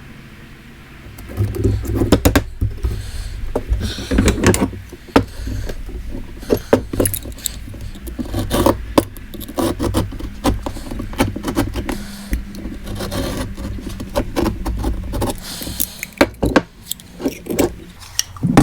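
Irregular metallic clinks and scraping from a steel bracket being worked, over a steady low hum, starting about a second in.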